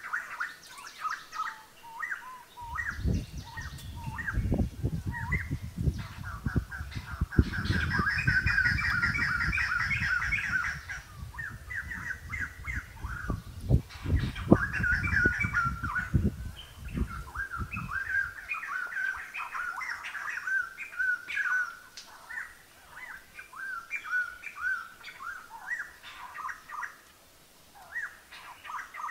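Birds chirping and calling continuously, with a fast trill for a few seconds near the start. A low rumbling noise with scattered knocks runs underneath from about three seconds in and stops abruptly a little past halfway.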